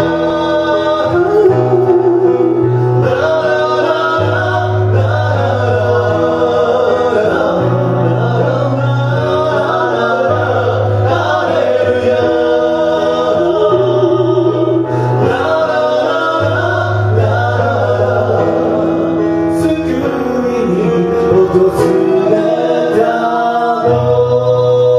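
Live song performance: voices singing wordless held notes with vibrato over instrumental accompaniment, with a steady bass line changing notes every second or so.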